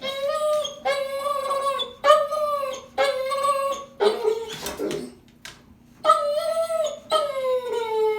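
A dog howling and whining in a run of drawn-out, pitched calls, about one a second, with a short pause midway.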